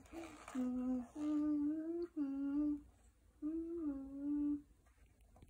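A young girl humming wordless held notes in two short phrases, with a pause near the middle.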